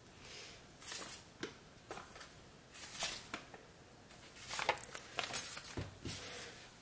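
Paper rustling and light taps as stickers are pressed onto a spiral planner page and the sticker sheet is handled: a string of short rustles, busiest about five seconds in.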